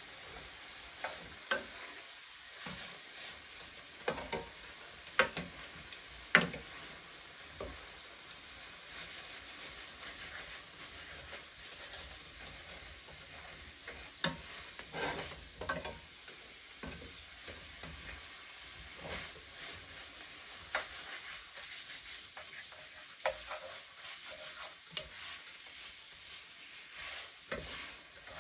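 Ramen noodles and mixed vegetables sizzling in a stainless steel skillet as they are stirred, with the utensil clicking and scraping against the pan at irregular moments; the loudest knocks come about four to six seconds in.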